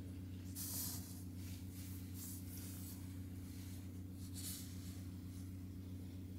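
Domestic cat purring steadily, a continuous low rumble close to the microphone, with soft rustles of a hand stroking its fur about a second in, again around two to three seconds in, and once more near four and a half seconds.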